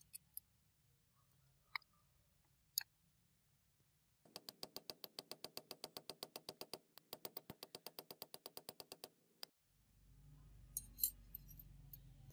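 Small steel gun-lock parts clicking as they are handled and fitted, a few single clicks at first. Then a fast, even run of clicks, about nine a second, lasts about five seconds with a short break in the middle. Near the end a low hum comes in with a few knocks.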